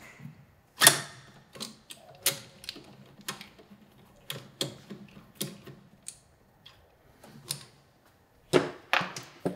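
Irregular sharp metallic clicks and knocks, about one or two a second, with a louder knock about a second in and a quick cluster near the end: a socket on a T-handle spinning out the 12 mm bolts of a motorcycle's cross brace.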